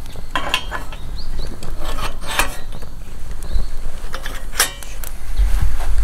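Stainless-steel skewer-rotating bar of a HITAKI fire pit's fish-grilling attachment being handled and set onto the steel fire-pit frame: a few metal clanks and scrapes, the sharpest about half a second in, around two seconds in and near the end.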